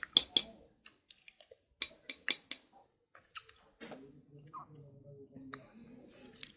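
Sharp, crisp clicks and cracks of slate pencil against teeth and other pieces, coming in quick clusters through the first half. From about four seconds in, a faint low murmur takes over.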